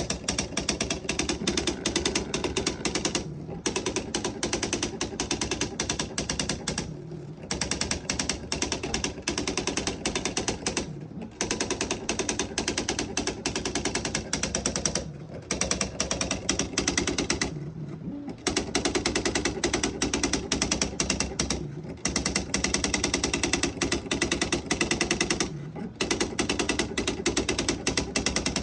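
Electronic typewriter printing a stored file from its memory on its own: fast, machine-gun-quick strikes in runs of three to four seconds, each run ended by a brief pause before the next one.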